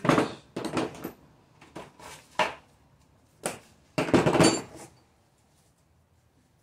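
Metal hand tools clinking and clattering, a series of sharp knocks and rattles with the loudest cluster about four seconds in, dying away about five seconds in.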